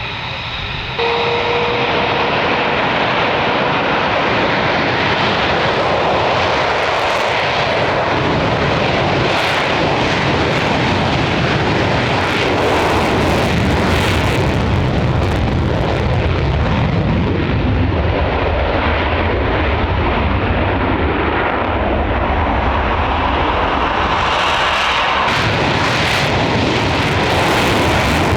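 Military jet aircraft engine noise, loud and steady, coming in abruptly about a second in.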